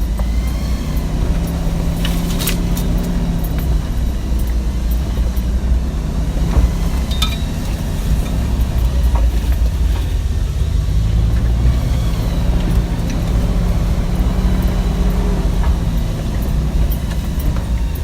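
Hemi V8 engine of a Jeep Wrangler JKU running as the Jeep drives, its pitch slowly rising and falling. A couple of sharp clicks sound early on.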